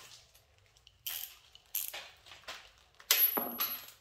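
Light metallic clinks and rattles of hands handling tools and motorcycle parts: a few short clicks spaced about half a second apart, then a louder, denser clatter near the end.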